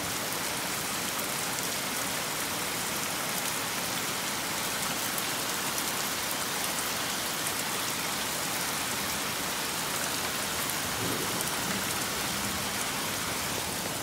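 Heavy rain pouring down, a steady, even hiss of rain falling on surfaces.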